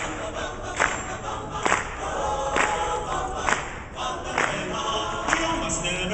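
Men's chorus singing, with the crowd clapping along in time, about one clap a second. Heard through a point-and-shoot camera's microphone.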